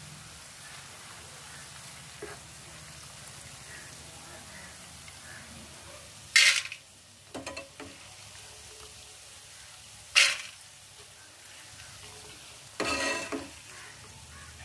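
Kara boondi (fried gram-flour drops) sizzling steadily in hot oil as a perforated steel ladle scoops it out. Three loud metal clanks come about 6, 10 and 13 seconds in, with a few lighter knocks between them.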